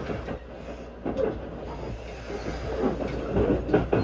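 JR 255 series limited express train running, heard from inside the carriage: a steady low rumble with the wheels clacking on the track a few times, loudest near the end.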